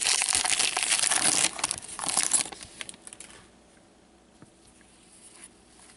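Wrapper of a 2015-16 SP Authentic hockey card pack crinkling loudly as gloved hands tear it open, dying away after about two and a half seconds into quiet handling of the cards.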